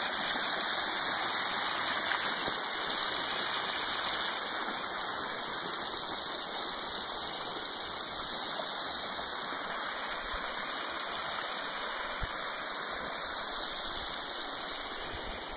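Water jetting from several pipe outlets and splashing onto a pond's surface: a steady rushing splash that grows slowly softer.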